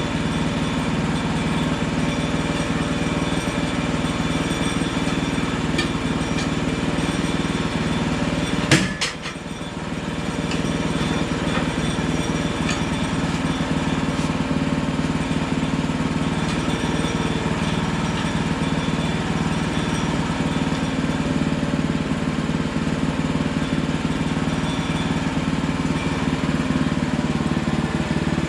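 Hudson Hunter portable band sawmill's gas engine running steadily. About nine seconds in there is a single sharp knock, and the sound dips for about a second before settling back to the same steady running.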